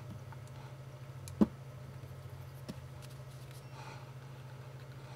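Small steel rifle parts being handled at the bench: one sharp metallic click about a second and a half in and a softer one a little later, over a steady low hum. Near the end comes a short faint hiss of aerosol lubricant sprayed onto the rifle's bolt.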